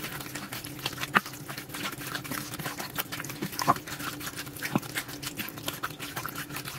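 A spoon stirring raw chicken pieces coated in yogurt and spices in a bowl: wet squelching with irregular clicks.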